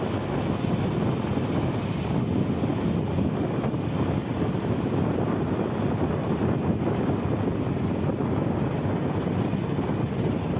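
Steady wind rushing over the microphone on a boat at sea, mixed with the wash of choppy waves.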